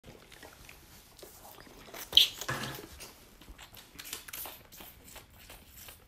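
Bottle calf nursing from a milk bottle: soft sucking and slurping with scattered small clicks, and a sharp knock about two seconds in, the loudest sound, followed by a short noisy rustle.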